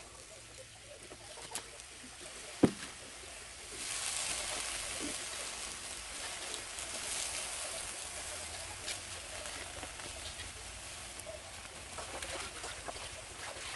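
A single sharp knock, then about four seconds in a steady sizzling hiss starts as chopped pechay (bok choy) leaves go into a wok of hot sauce on a gas burner.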